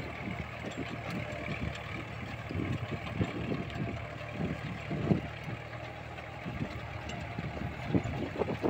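Mahindra Jivo 365 compact tractor's three-cylinder diesel engine running steadily under load while it drives an Ambica rotary tiller through the soil, with uneven low rumbling mixed in.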